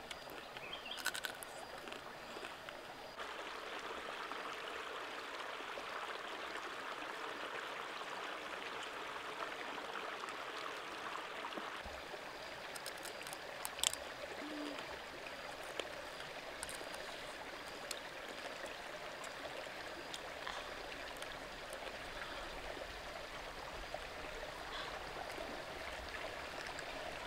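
Steady rush of a stream flowing over rocks, with a few sharp clicks, the loudest about halfway through.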